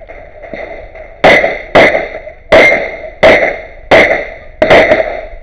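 STI TruBor pistol firing 9x19 Major loads in a rapid string, a shot every half second to second. Six sharp reports with a ringing tail each, and a seventh at the very end, after a quieter first second.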